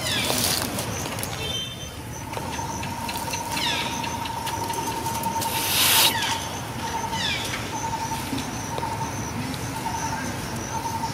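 Outdoor birdsong: a falling call repeated about every three and a half seconds, and a steady pulsing note that starts about two seconds in. A short loud rush of noise comes about six seconds in.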